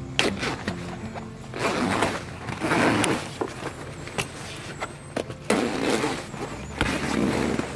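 Sailcloth rustling and crumpling in two long bursts as a sail is hauled down and bundled by hand, with a few sharp clicks. Background music ends about a second and a half in.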